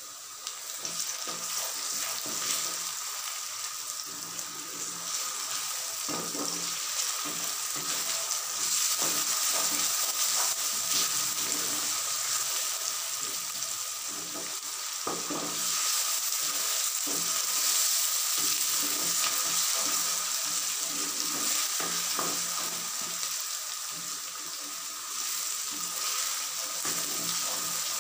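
Onions and garlic-ginger paste frying in hot oil in a pot. The sizzle jumps up about half a second in as the paste goes in. A wooden spatula scrapes and knocks against the pot as the mixture is stirred.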